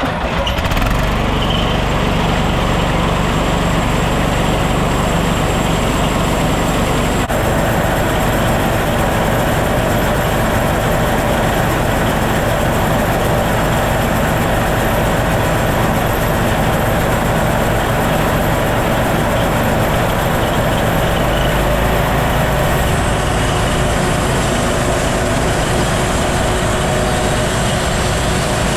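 Homemade bandsaw mill's engine starting and then running steadily, its tone shifting about seven seconds in and again about twenty-one seconds in.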